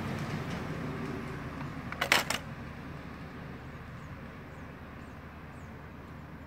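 A road vehicle's engine hum fading as it moves away, with a short loud clatter of knocks about two seconds in, then faint bird chirps.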